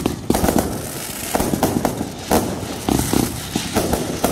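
Aerial fireworks going off: an irregular, rapid string of sharp bangs and crackles as shots launch and burst overhead, several a second, with one louder bang a little past the middle.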